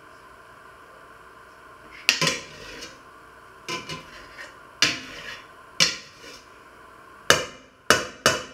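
A metal spoon knocking against a stainless steel pot while scooping: a series of sharp metallic clanks, irregularly spaced about a second apart, with two quick ones near the end.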